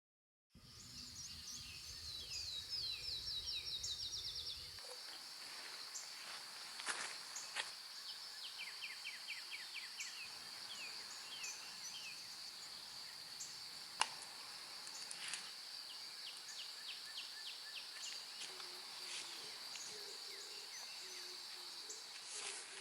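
A continuous high-pitched insect drone, with birds calling now and then in quick runs of short chirps. There is a single sharp click about fourteen seconds in.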